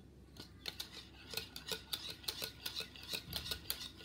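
Wire whisk beating yogurt in a plastic bowl, its wires clicking against the bowl in a quick, steady run of about five or six clicks a second that starts about half a second in.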